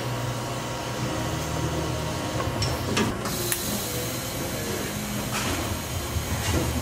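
Welding on a steel roll cage: a steady low hum with a few sharp, light clicks and taps scattered through it.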